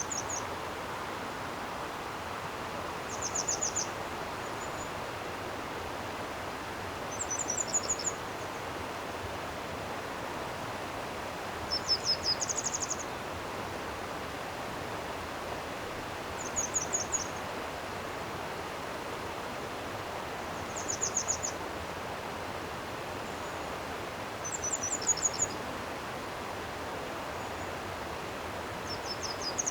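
Steady rushing of a flowing stream, with a small songbird singing a short, high, rapid trill about every four seconds.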